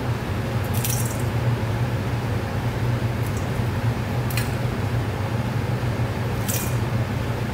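Metal spoon scraping and clinking through ground circuit-board grit in a stainless steel bowl, three short scrapes, over a steady low hum.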